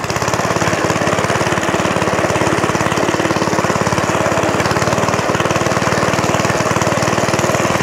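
Small single-cylinder petrol engine of a 1960s Suffolk Corporation Mk2 sidewheel cylinder mower, running steadily at open throttle with a fast, even firing rhythm as it drives the cutting cylinder across the lawn.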